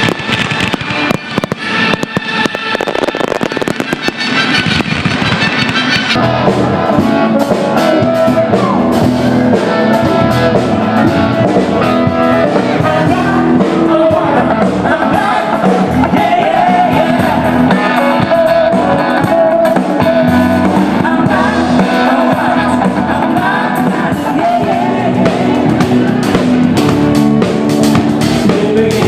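Fireworks bursting over loud music with singing. The bursts come thick and fast in the first few seconds, then more scattered, while the music carries on.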